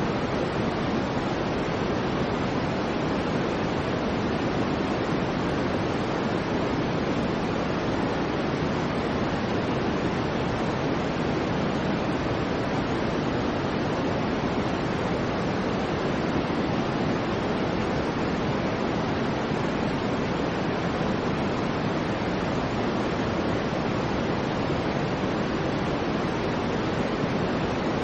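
Steady soft white noise for baby sleep: an even, unchanging hiss, fuller and softer in the lows than a bright hiss.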